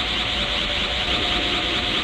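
Dragon Ball Super's Super Saiyan God ki aura sound effect: a steady energy hum with a bright, fast-fluttering fizz high up and a low rumble beneath.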